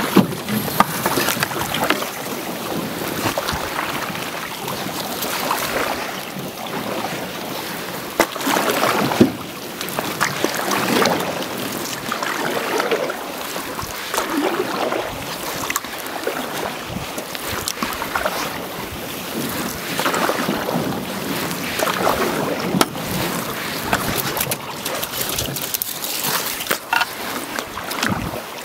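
Wooden canoe paddles stroking through still floodwater beside an aluminium canoe, a swish about every two seconds, with water washing along the hull. There are a few sharp knocks.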